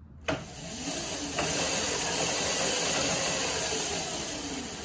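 Razor electric dirt bike's motor and chain drive spinning the rear wheel freely off the ground under throttle: a click about a third of a second in, then a whir that builds with a rising whine over the first second and holds steady, easing a little near the end.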